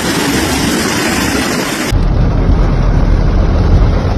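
Steady hiss of heavy rain and rushing floodwater, giving way abruptly about two seconds in to a deep low rumble.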